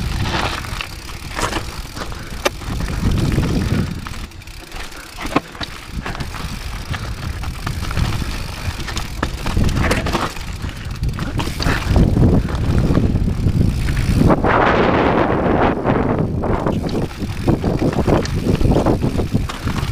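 Rocky Mountain 790 MSL mountain bike riding down a rough rocky dirt trail: tyres rolling and crunching over stones and loose dirt, with frequent knocks and rattles from the bike over bumps on top of a steady low rumble. A louder stretch of rough noise comes about two-thirds of the way through.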